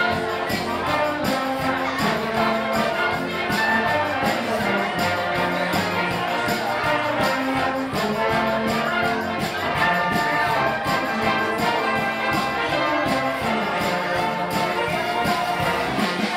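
Brass band playing traditional Austrian wind-band music: trumpets, trombones and low brass over a steady beat.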